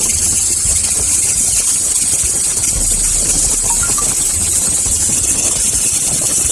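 Handheld laser welding machine at work: a loud, steady hiss of shielding gas over a low machine hum.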